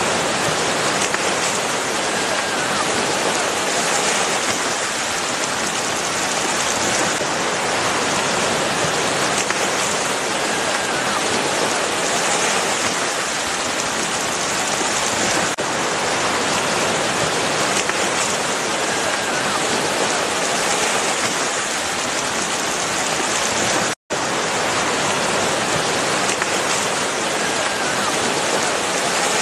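Water surface churned by a dense school of mullet: a steady hiss of countless small splashes, like heavy rain on water. It cuts out for an instant about 24 seconds in.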